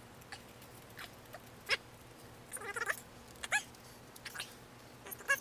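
Small screwdriver prying into the paper-and-glue casing of a 5-inch aerial firework shell, giving about six short, sharp squeaks that each rise quickly in pitch, with the loudest near the end.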